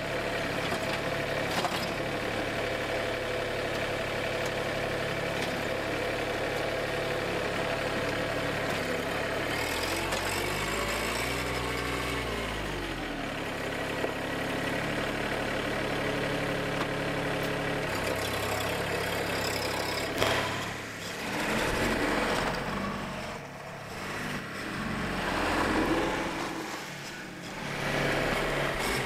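Mahindra 1626 compact tractor's engine running steadily while digging pond clay. About ten seconds in its pitch drops and comes back up over a few seconds. In the last third, swelling rushes of wind on the microphone come and go over the engine.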